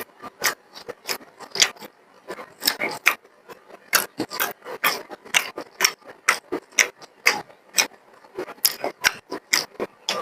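Close-miked chewing and lip-smacking of someone eating beef and rice: rapid, irregular wet smacks and clicks, several a second.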